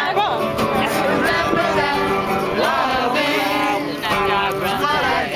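Music: a song with a sung melody over steady instrumental accompaniment.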